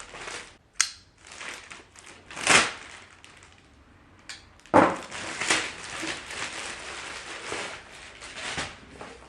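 Parcel packaging being opened by hand: crinkling and crumpling, with a sharp click about a second in and two loud sudden rips or crunches, followed by a few seconds of steady crackling.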